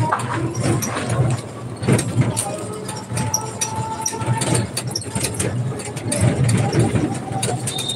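Interior ride noise of an auto-rickshaw on the move: its engine running with a steady low hum, and frequent rattles and knocks from the body.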